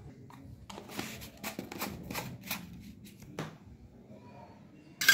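Stainless-steel mesh sieve being shaken over a bowl, sifting flour and semolina through it: a run of short scratchy strokes, about two to three a second, ending with one sharper knock.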